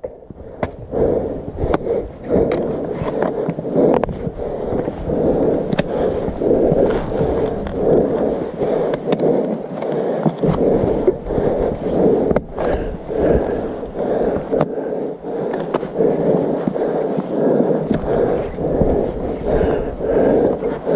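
Hiker's footsteps and trekking-pole tips striking rock on a steep, leaf-covered trail: irregular sharp clicks and knocks over continuous close rustling and scuffing.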